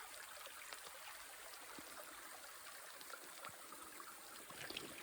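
Faint, steady trickle of a small creek flowing over rocks.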